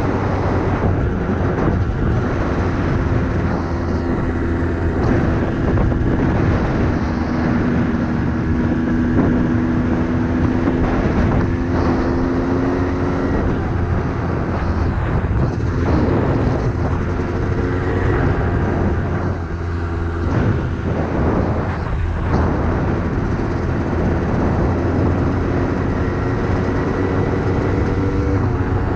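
Yamaha YZ250 two-stroke single-cylinder dirt bike engine running under load, its pitch slowly rising and falling as the throttle is worked, with a few brief dips in between.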